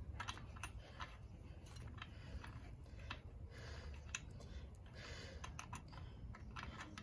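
Faint, irregular metallic clicks and light scraping from a Honda Helix clutch shoe assembly being held down while its retaining nut is worked onto the thread by hand.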